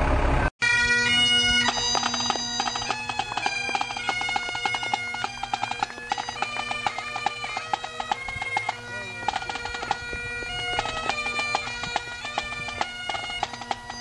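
Scottish Highland bagpipes of a marching pipe band playing a tune over their steady drones, with a drum keeping the beat. The pipes come in after a sudden cut about half a second in.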